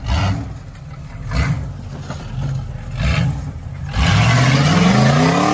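Off-road rock buggy's engine revving in short bursts, then a longer rev rising in pitch from about four seconds in, straining to pull the buggy up with its rear tire down in a deep hole.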